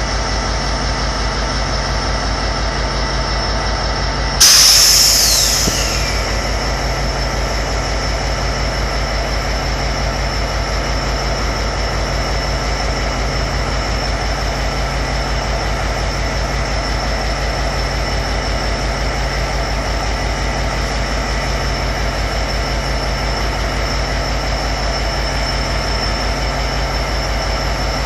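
A GO Transit train's diesel locomotive idling steadily while standing still. About four seconds in comes a sudden loud hiss that dies away over a second or two as its pitch falls.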